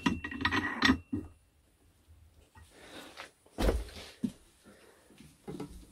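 Metal build plate of an Elegoo Mars Pro resin 3D printer being fitted onto its arm: scraping and clicks for about a second, then a single solid knock about three and a half seconds in and a few lighter clicks.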